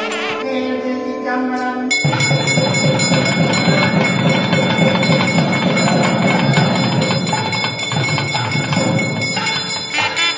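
Held musical tones for about two seconds, then temple bells clanging rapidly and continuously over a dense din, as at the high point of an arti, easing off near the end.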